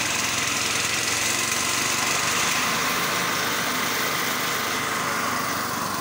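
Small engine running steadily, powering a sugarcane juice crusher.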